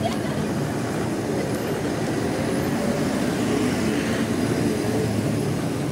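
Diesel bus engine running close by: a steady low rumble.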